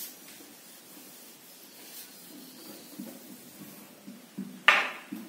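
Whiteboard being wiped clean with an eraser: faint, uneven rubbing strokes across the board's surface. About four and a half seconds in, a single short, sharp and much louder sound cuts in.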